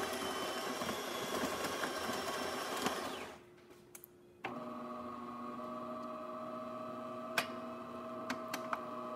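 DeLonghi Magnifica XS super-automatic espresso machine starting a shot: its built-in grinder runs with a rough whirr for about three seconds and stops. After a short pause with a couple of clicks, a steady motor hum begins as the brew cycle starts, with a few light clicks along the way.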